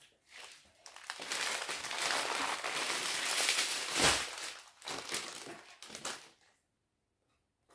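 Small plastic bags of diamond painting drills crinkling as they are handled and pulled out in strips, with one louder rustle about four seconds in.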